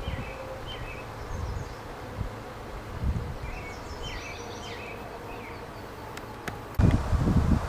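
Small songbirds chirping in short twittering calls, in two brief bouts, over low gusting rumbles of wind on the microphone that grow loudest near the end.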